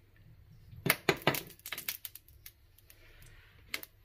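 A quick run of sharp clicks and clinks about a second in, then a single one near the end: hard kitchen items such as a bottle and bowl being handled and set down beside the stove.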